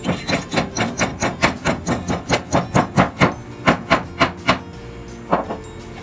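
Rapid, even hammer taps, about four or five a second, then a pause and one last tap, with background music underneath.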